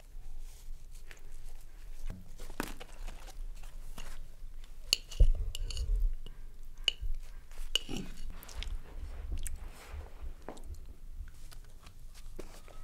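A person chewing large mouthfuls of food noisily, with irregular crunching and wet mouth clicks, gulping it down fast.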